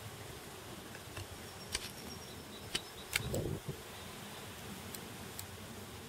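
Summer outdoor ambience with insects buzzing, broken by a few sharp clicks and a short low rumble about halfway through.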